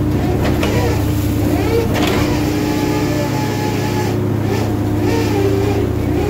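Steady drone of a purse seiner's engines and net-hauling machinery, with water splashing as fish churn in the pursed net.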